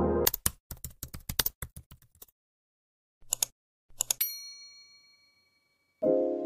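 Typing sound effect: a quick run of sharp key clicks, a pause, a few more clicks, then a single bell ding that rings out and fades over about a second. Music comes back in just before the end.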